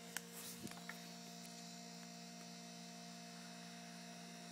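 Steady low electrical hum of several fixed tones over faint hiss, with a few small clicks in the first second.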